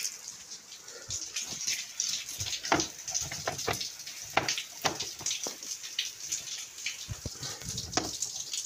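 Plastic scooter body panels being handled and pressed into place: irregular clicks, knocks and scrapes of plastic on plastic as the panel clips are pushed home.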